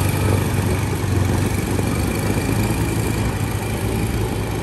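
Boat engine running steadily, with a low drone.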